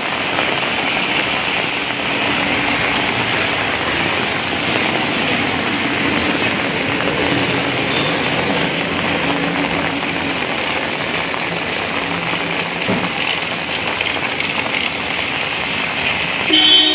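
Steady hiss of heavy rain and tyres on a wet road, with car engines passing at low revs. A short vehicle horn toot near the end.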